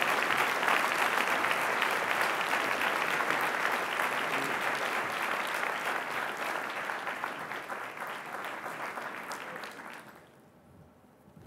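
Audience applauding, the clapping thinning out and dying away about ten seconds in.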